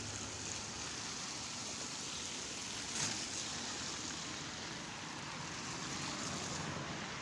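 Steady even hiss of outdoor background noise, with a faint click about three seconds in.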